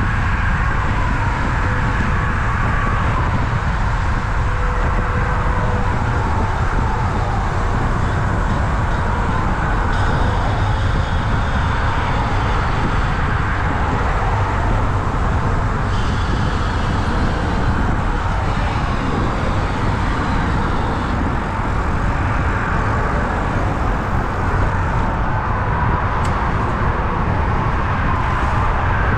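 Steady highway traffic noise from cars and trucks crossing the bridge, a continuous rush with a strong low rumble underneath and no breaks.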